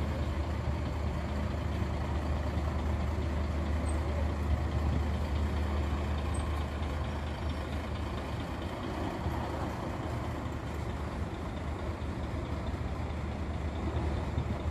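Intercity coach's diesel engine running with a steady low drone as the bus drives slowly past close by.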